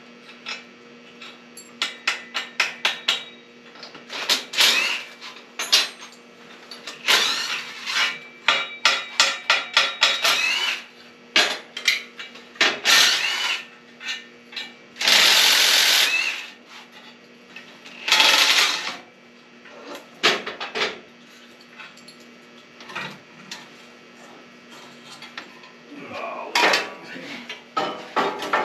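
Ratchet wrench working rusted, penetrating-oil-soaked exhaust manifold bolts loose on a John Deere 3155 tractor engine: runs of rapid clicks, with short grinding, squeaking bursts as the bolts turn and scattered metal knocks.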